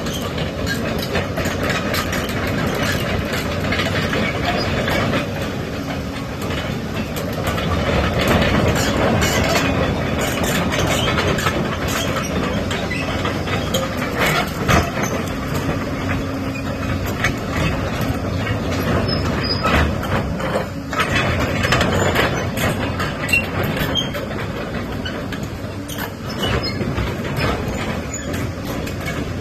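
Hyundai 225LC-9T crawler excavator working: its diesel engine runs steadily under shifting load, with frequent metallic clanks and knocks.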